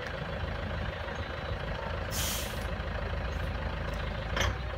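Tourist road train's engine running with a steady low rumble, with a short hiss about two seconds in and another brief hiss near the end.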